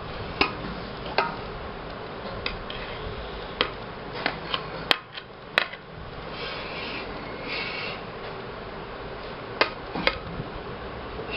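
Ceramic serving plate and metal cooking pot being handled: about ten light, scattered clinks and knocks over a steady background hiss.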